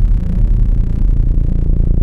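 Synthesized low-pitched electronic tones from a water-eject sound file: a deep buzzing hum that shifts between pitches with a fast flutter. The tones are meant to vibrate trapped water out of earbud speaker mesh.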